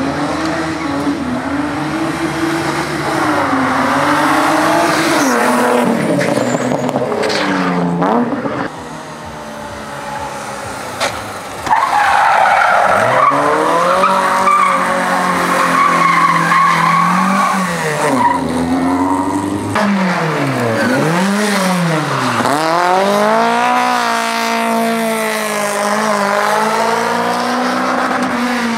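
Slalom competition car driven hard, its engine revving up and falling back again and again with tyres squealing. The sound drops back briefly about nine seconds in, then returns louder, with quick repeated rises and falls of revs near the end.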